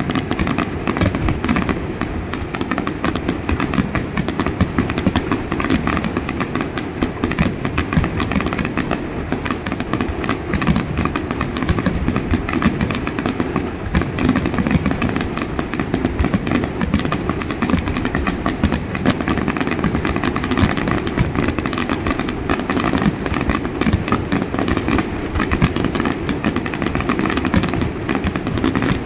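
Fireworks finale: a dense, unbroken barrage of rapid explosions and crackling, many bursts every second with no pause.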